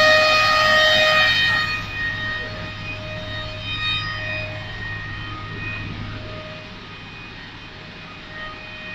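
Four-side moulder running, a steady high-pitched whine over a low hum. The whine is loud for about the first second and a half, then drops to a quieter steady level.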